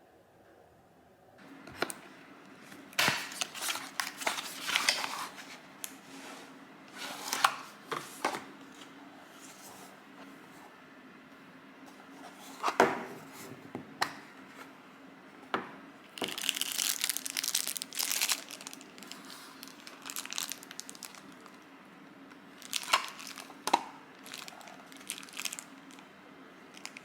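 Packaging being handled and torn open: irregular crinkling and tearing in short bursts, with a few sharp knocks, over a faint steady hum.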